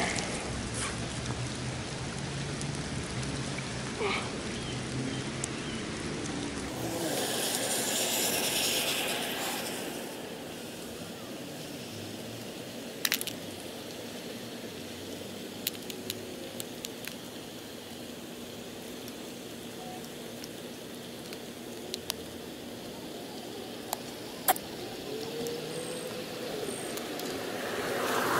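Scattered sharp clicks and small rattles of hands handling fishing tackle: an open plastic tackle box and hooks being rigged. Under them is a steady outdoor hiss that swells for a few seconds early on.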